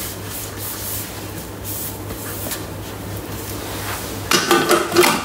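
A cloth rubbing over the Thermomix's plastic lid as it is wiped dry, then the lid clacking down onto the mixing bowl near the end, over a steady low hum.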